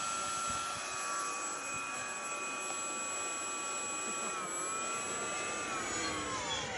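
120mm electric ducted fan of a model jet whining in flight: a steady high whine whose pitch steps down about four seconds in and falls further near the end.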